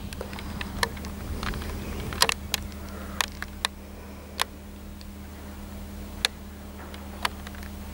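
Engine shed ambience: a steady low hum with scattered sharp clicks and metallic knocks at irregular intervals, the loudest a little after two seconds in.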